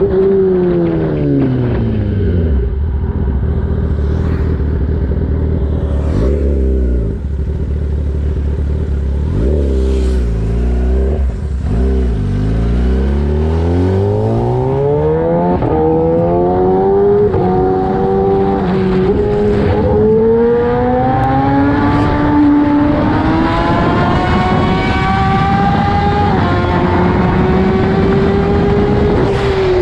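Kawasaki Ninja ZX-10R inline-four through a full race exhaust, heard from the rider's seat. The revs fall over the first couple of seconds, stay low with a few quick dips and rises, then from about halfway the engine accelerates hard, the pitch climbing in steps as it shifts up through the gears.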